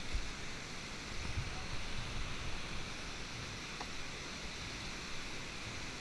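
Steady rush of churning whitewater in a steep creek rapid at high water, heard from a kayak running through it.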